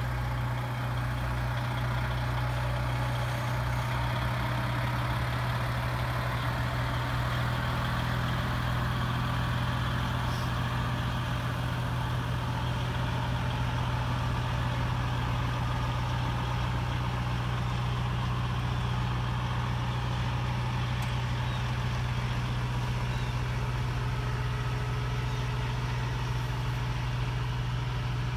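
Heavy diesel truck engine running steadily at low speed while slowly pulling a heavy load, a deep even hum with no revving.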